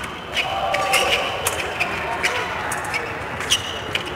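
Fencing blades clicking and clinking against each other in a series of sharp, irregular contacts as two fencers engage.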